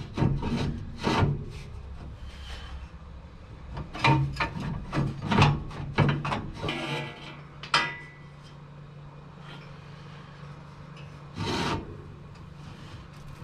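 Steel exhaust header scraping and knocking against the truck's frame and engine as it is worked up into place by hand, in irregular bursts of rubbing and clunks.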